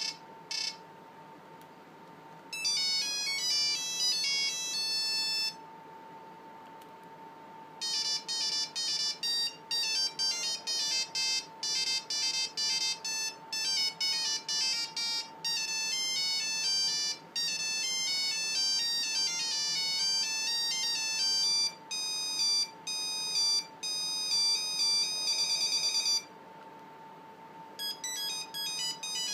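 Nokia 5510 mobile phone playing its original built-in ringtones one after another: bright electronic beeping melodies, one note at a time. There are short pauses between tunes about 5 s and 26 s in, and a couple of short beeps right at the start.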